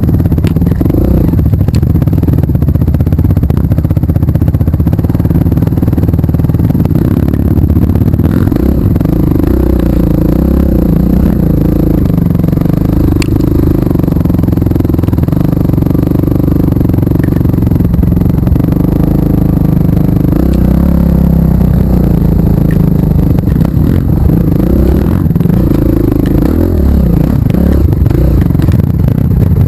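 Trail motorcycle engine running at a fairly steady pitch that shifts a little now and then, with rattling and scraping.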